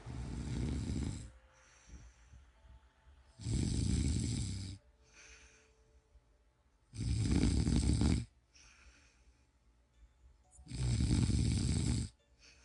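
A person snoring: four loud snores, each a little over a second long and evenly spaced about every three and a half seconds, with softer breaths between.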